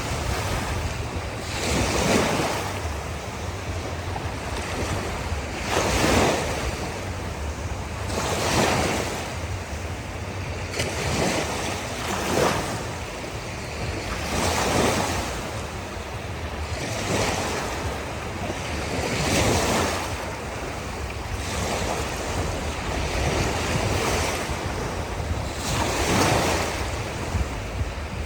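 Ocean waves washing in, a swell of surf noise rising and falling about every two seconds over a steady low rumble.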